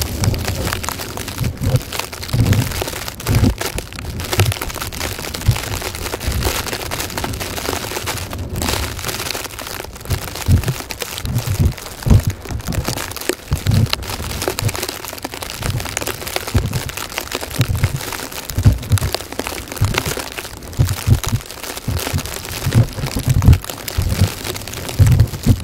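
Blizzard wind buffeting the microphone in irregular deep thumps, over a steady crackling hiss like wind-driven snow.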